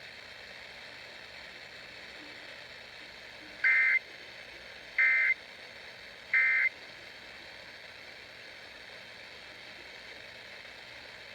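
Three short bursts of Emergency Alert System SAME data tones, each a fraction of a second long and about a second and a half apart, over a steady hiss of dead air. Their shortness fits the end-of-message code, sent here straight after the alert's spoken introduction with no warning text in between, which the listener takes for a failed relay of the flash flood emergency.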